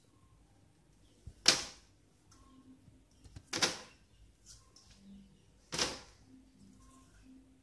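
Plastic net cups with seedlings being set into the holes of a PVC hydroponic growing channel: three sharp plastic clacks about two seconds apart, the first the loudest.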